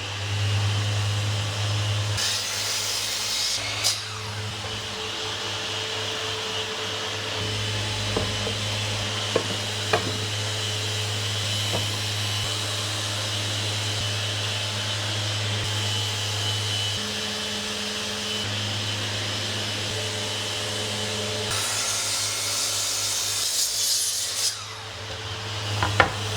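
A power tool working wood, running steadily with a hum and hiss that shifts several times, broken by a few sharp knocks.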